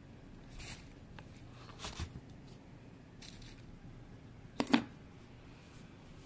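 Handling of a plastic protein-powder tub and its screw lid: a few soft rustles and scrapes, then a sharp double knock of plastic on plastic about three-quarters of the way through.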